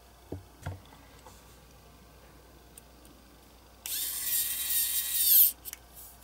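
Pen-style cordless electric precision screwdriver turning a small screw in a diecast toy's base. Its small motor whines for about a second and a half, a little after halfway, spinning up and winding down, with two light clicks near the start.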